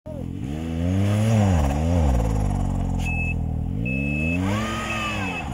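Ski-Doo Expedition 900 ACE Turbo snowmobile's turbocharged three-cylinder four-stroke engine revved up and down repeatedly while the sled is stuck in deep snow, as the rider works to free it. Its pitch climbs and drops twice in the first two seconds, then rises again in a longer rev near the end. A short high beep repeats about once a second through the second half.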